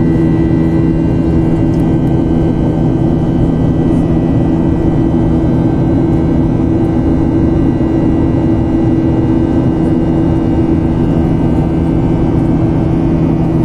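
Airliner cabin noise in flight: a loud, even rush of engine and air noise with a steady low hum, heard from inside the passenger cabin.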